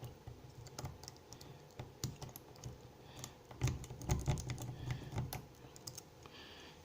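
Lock pick raking the wafers of a small Abus cable padlock with the back of a city rake: quick, irregular light metallic clicks and scrapes, busiest around the middle.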